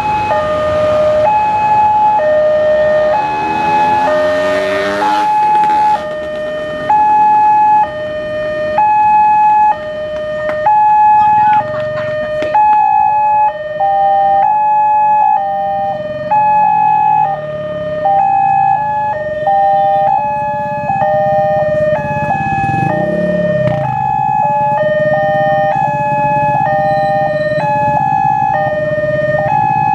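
Indonesian railway level-crossing warning alarm sounding its standard two-tone alternating chime, about one tone a second. About thirteen seconds in a second crossing alarm at slightly different pitches joins, and the two overlap out of step.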